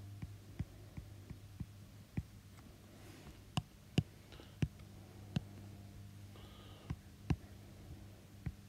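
Stylus tip tapping and sliding on an iPad's glass screen while drawing: irregular sharp clicks, sometimes two or three a second, with a few faint scratchy strokes. A steady low hum runs underneath.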